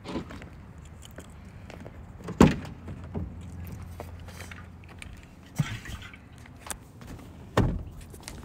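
Car door being opened and shut in the rain: one heavy thud about two and a half seconds in and another near the end, with smaller knocks and rattles between, over a low steady hum.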